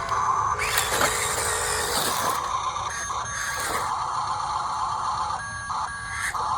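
Radio-controlled toy excavator at work: its small electric motors whir in stretches as it moves, over a steady hum.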